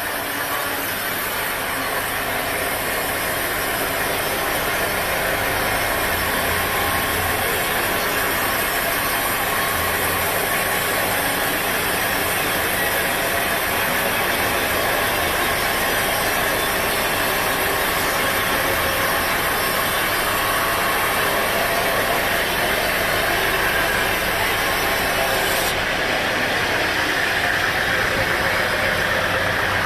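An engine running steadily, under a constant hiss of machine noise.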